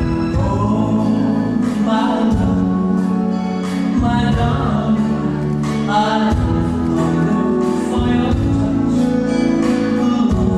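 Polonaise music with a steady beat, its bass moving to a new note about every two seconds.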